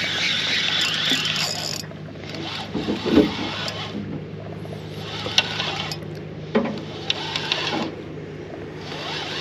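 Fishing reel being cranked in several whirring stretches of a second or two each, with short pauses between, as a hooked fish is wound in. A brief low thump about three seconds in.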